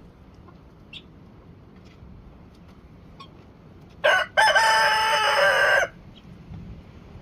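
A rooster crowing once, about four seconds in: a short first note, then a long held call of about a second and a half. A faint low wind rumble runs underneath.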